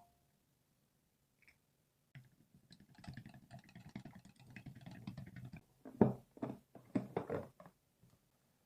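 Objects being handled close by: light clicking and rustling for a few seconds, then several louder knocks.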